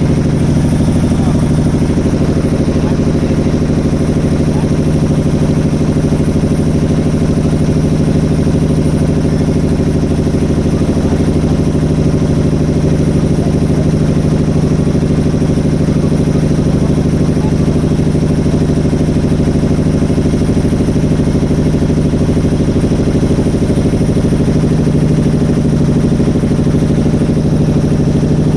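Motorboat engine running at a steady speed, a constant low drone with a light clatter.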